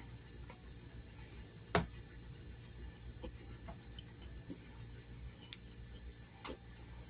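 Faint, irregular clicks and taps from a tablet being handled, with one sharper knock about two seconds in, over a low steady room hum.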